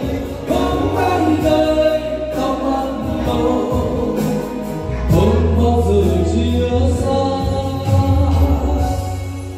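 Background music: a song with choral singing over a steady bass line.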